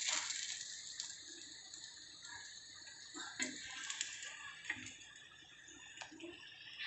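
Lachha paratha frying in ghee in a pan, a steady high sizzle, with several light clicks and scrapes of a metal slotted spatula against the pan as the paratha is lifted and moved.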